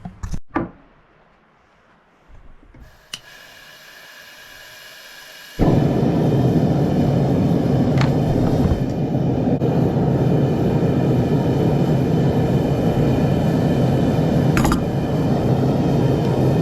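A forge being fired up. A steady motor whine starts about three seconds in, then about halfway through a loud, steady rushing burner noise comes on suddenly and keeps running.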